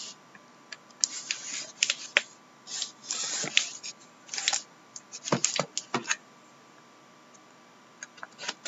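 A cardboard shipping case being turned over and handled: light scrapes and rustles of the taped box, then a few sharp knocks about halfway through, with a few more clicks near the end.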